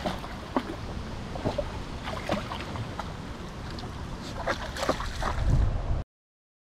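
Shallow water splashing and lapping as a dog wades on a flooded concrete step, in scattered short splashes with a busier patch near the end, over light wind noise on the microphone. The sound cuts off abruptly about six seconds in.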